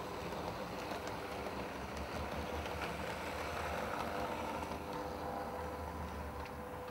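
OO gauge model diesel locomotive, the Hornby Railroad Class 42 Warship 'Thruster', running on the track with its electric motor giving a steady hum while it pulls coaches. The hum swells a little as it passes close about four seconds in.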